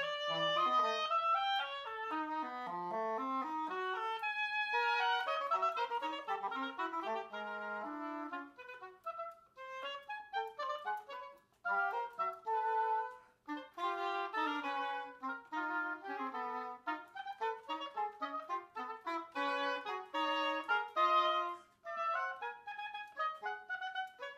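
An oboe and an English horn playing a fast duet in two parts, the oboe above and the English horn below, in quick runs of notes. After about a third of the way in the playing turns to short, detached notes, broken by a few brief pauses.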